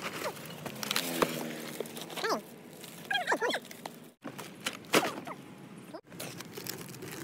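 Several short high whines from an animal, each sliding up and down in pitch, over rustling and handling noise. The sound breaks off abruptly twice.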